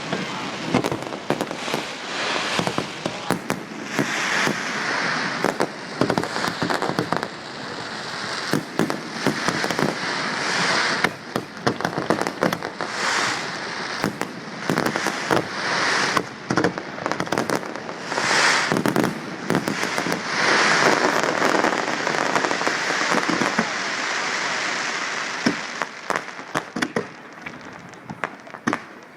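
Big fireworks display going off: rapid sharp bangs and reports one after another over a constant crackle, with the densest volleys about a third and two-thirds of the way in.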